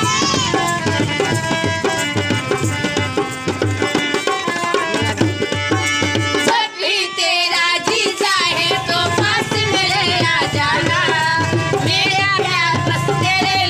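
Indian folk music with tabla drumming under a melody. About halfway the low drums stop for a moment, then a wavering, ornamented melody line takes over with the drums back underneath.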